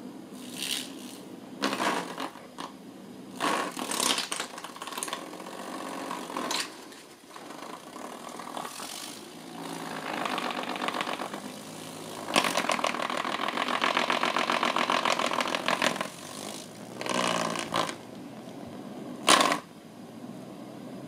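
Small black desk fan rattling as a Bengal cat paws and noses at it: short clattering bursts, then a steady fast clatter lasting about four seconds midway.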